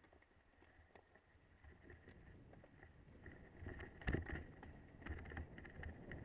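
Mountain bike rolling over a rocky dirt singletrack, heard from a camera on the bike: tyre and trail noise with rattles and clicks from the bike, fading in and growing louder, with one sharp knock about four seconds in.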